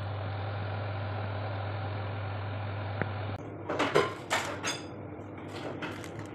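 A steady low electrical hum for the first half, then a metal spatula scraping and clicking against a foil-lined baking tray, the foil crinkling in short bursts.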